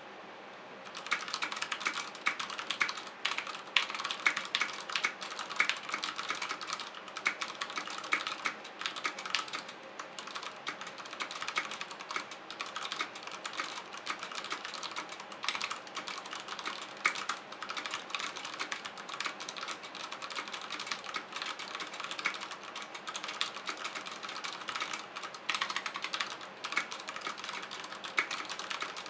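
Fast continuous typing on a mechanical keyboard with Cherry MX Brown switches and PBT keycaps (Ducky Shine 3): a dense, rapid clatter of keystrokes, starting about a second in.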